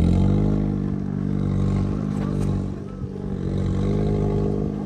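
Audi TT RS's turbocharged 2.5-litre five-cylinder engine revving hard under load as the car climbs a steep rock slope. The revs sag briefly about three seconds in, then pick up again.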